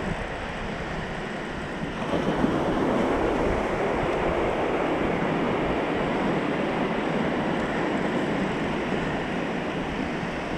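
Ocean surf washing onto the beach, with wind buffeting the microphone; the wash grows louder about two seconds in and then holds steady.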